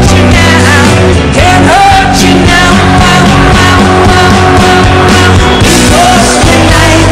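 Loud rock music with a singing voice: sustained vocal lines sliding up in pitch over a full band with steady bass.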